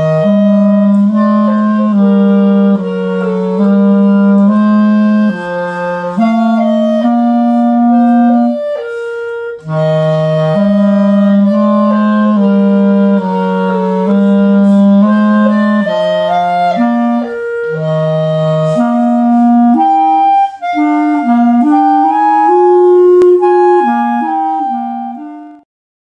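Two clarinets playing a duet, a lower part and a higher part moving together in notes. Both stop briefly about nine seconds in, then pick up again, and the music cuts off suddenly near the end.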